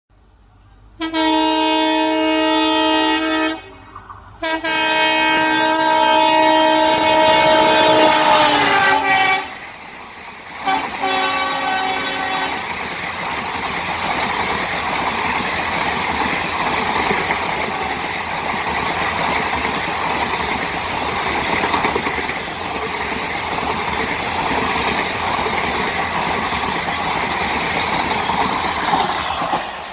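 A WDP-4B diesel locomotive's multi-tone air horn sounds three times: a blast of a few seconds, a longer blast whose pitch falls near its end as the locomotive passes, then a short one. After that the passenger coaches roll past at speed in a steady loud rush of wheels on rail.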